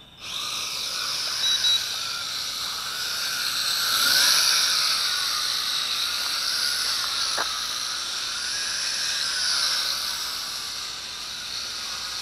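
F2 RC micro quadcopter's motors and propellers spinning up and carrying it off the ground: a buzzing whine whose pitch wavers up and down with the throttle, over a steady high hiss.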